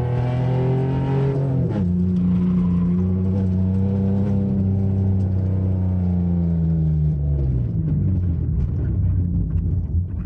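Car engine under hard driving on an autocross run, heard from inside the car: the revs climb, drop sharply with an upshift about two seconds in, hold steady, then fall away later on.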